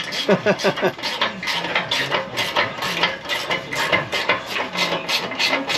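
Hand ratchet wrench clicking rapidly, about five or six clicks a second, as bolts are worked on a pickup's exhaust system.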